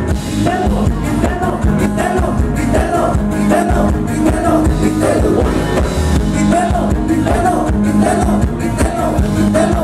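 Live Thai ramwong band music played loud through a PA: drum kit beat, electric guitar and a man singing.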